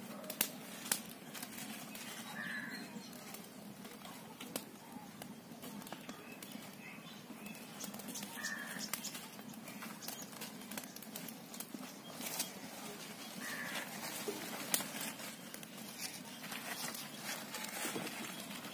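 Small open fire of twigs, dry leaves and coconut husks crackling, with scattered sharp pops.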